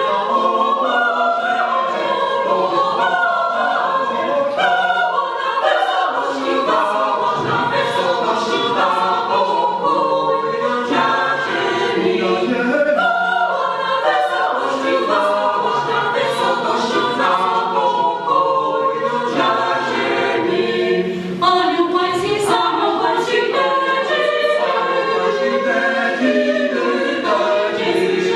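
Small mixed choir singing a Polish Christmas carol a cappella, several voices in harmony without a break.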